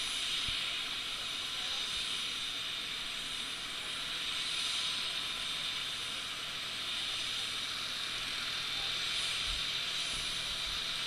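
Light turbine helicopter running on the ground, heard from a distance as a steady high hiss.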